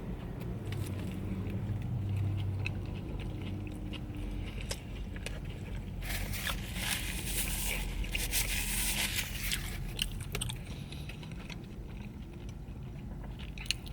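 A person biting into and chewing a Spicy Mayo McChicken burger, a crumbed chicken patty topped with crispy jalapeños, with small scattered clicks and a louder, noisier stretch of chewing about six to nine seconds in.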